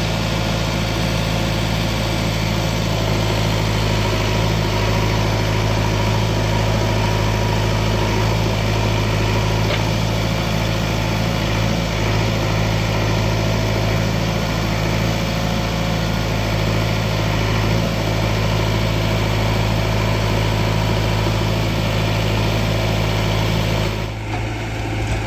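Heavy diesel engine running steadily at a low, even speed, with a short dip in level near the end.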